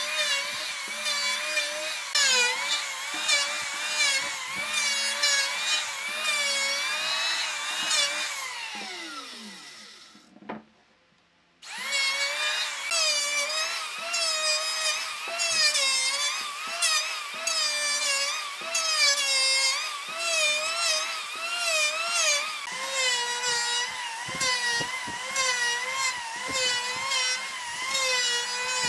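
Electric hand planer cutting across a wooden log slab, its whine dipping and recovering about once a second as the blade bites into the wood on each pass. About eight seconds in it is switched off and winds down to silence, then starts up again about three seconds later and carries on planing.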